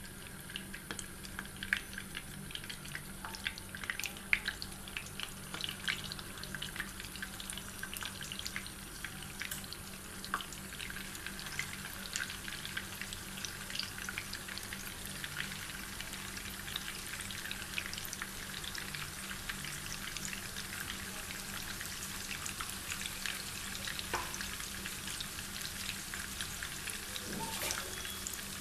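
Beef gola kababs shallow-frying in hot oil in a nonstick pan: steady sizzling with frequent small crackles and a few sharper pops.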